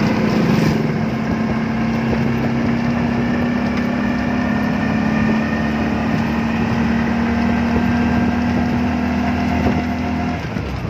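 Vehicle engine running at a steady pace while driving, heard from inside the driver's cab: a steady droning hum over road and engine rumble. The hum drops away near the end.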